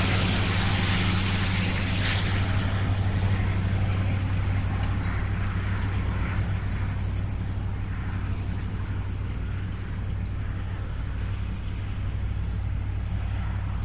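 Low, steady diesel rumble of the departing freight train's locomotives, slowly fading as the train draws away.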